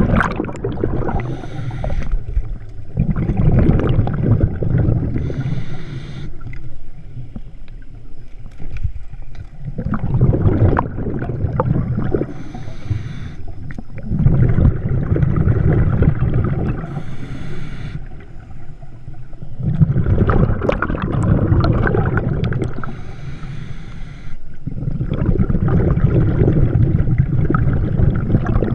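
Scuba diver breathing through a regulator underwater: a short hiss on each inhale and a low rush of exhaled bubbles, repeating every few seconds.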